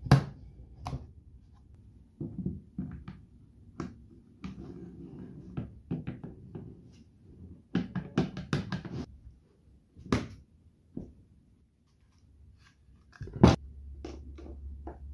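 A wooden slider carriage fitted with V-groove bearings being handled and worked on steel rails: irregular clicks and knocks of metal on metal and wood, with a low rumble between some of them. Near the end a loud knock, then a steady low hum starts.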